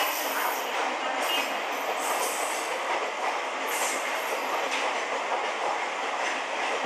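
Express train's passenger coaches rolling past at speed: a steady rumble and clatter of wheels on rail, with brief high-pitched wheel squeals now and then.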